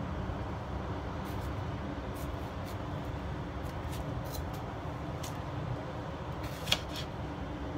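Kitchen knife slicing through a tomato on a cutting board: a few soft taps of the blade reaching the board about a second apart, then one sharper knock near the end. A steady low hum runs underneath.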